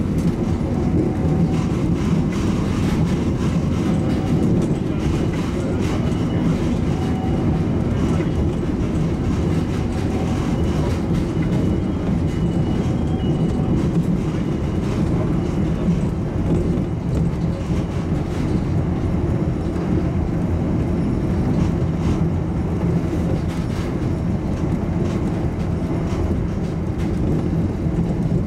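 Driverless rubber-tyred airport shuttle train running steadily through a tunnel, heard from inside the car: a steady rumble with a faint high whine that comes and goes.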